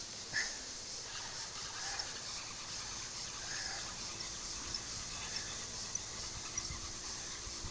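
Steady outdoor hiss with a few short bird calls and some faint light ticks.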